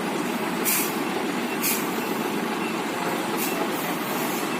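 Heavy truck engine running in slow, stop-start climbing traffic, with several short hisses of compressed air from air brakes.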